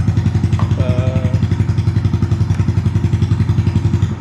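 2017 Honda Grom's 125cc single-cylinder four-stroke engine idling steadily with an even, rapid exhaust beat, about a dozen pulses a second. It runs smoothly with no knocking, freshly started after a rebuild.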